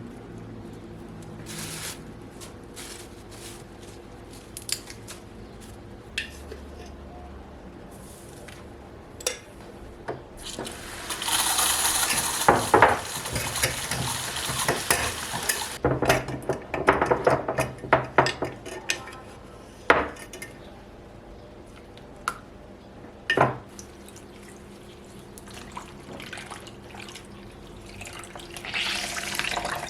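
Dishes and cutlery being handled in a kitchen: scattered clinks and knocks, a dense stretch of clattering with a rush of water about eleven seconds in, and another swell of noise near the end.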